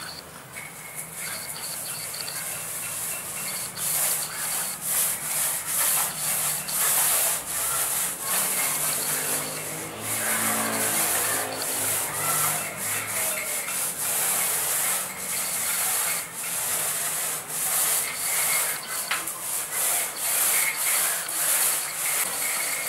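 Paint roller on an extension pole rolling No Drop waterproof coating up and down a plastered wall: a sticky, rasping swish that swells and fades with each stroke, over and over.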